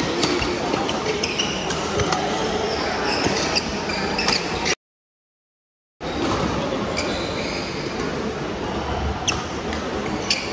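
Badminton rally in a large hall: sharp racket strikes on the shuttlecock and shoes squeaking on the court floor, over the steady background of other games and voices. Midway the sound cuts out to total silence for about a second, then the play resumes.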